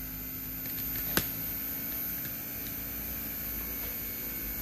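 Two inverter-driven air-conditioner rotary compressors running unloaded on the bench, a steady low hum. A single sharp click about a second in.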